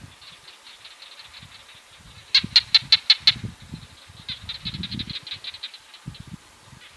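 A chorus of barking geckos calling in rapid runs of sharp clicks. A loud, close run of about seven clicks comes about two and a half seconds in, and a longer run follows a second later, over fainter callers clicking throughout.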